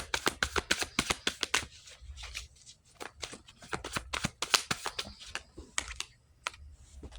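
A deck of reading cards being shuffled and handled: quick papery clicks, dense for about two seconds, then sparser snaps and flicks.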